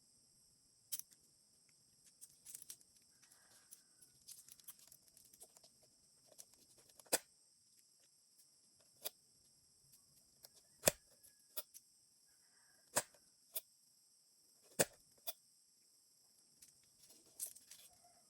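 Small hard objects being handled: scattered sharp clicks and taps, about a dozen, with a few short faint squeaks in between, over a steady faint hiss.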